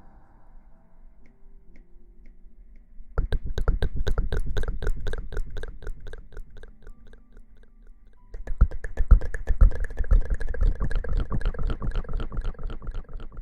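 Close-miked ASMR rubbing with rapid, dense crackling, in two spells: one starting about three seconds in and stopping briefly after about seven seconds, then a second, louder one from about eight and a half seconds on.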